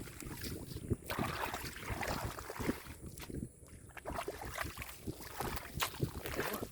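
Hands splashing and sloshing in shallow muddy water, with irregular crackles and rustles from moss being pulled through it, and wind on the microphone.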